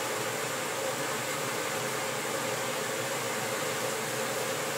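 Steady machine hum and hiss, even throughout, with a faint steady tone running through it.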